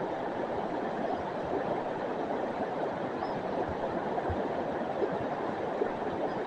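River water flowing in a steady rush.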